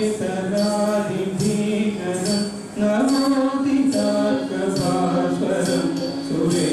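Carnatic music accompanying a Bharatanatyam dance: a singing voice holding and sliding between notes over percussion, with bright metallic strokes recurring about every three-quarters of a second.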